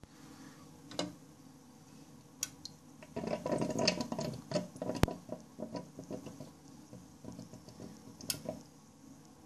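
Water from a small pump's feed tube trickling into a toilet cistern, over a steady low hum. A burst of close rustling and clicks comes about three to six seconds in, with a few single sharp clicks.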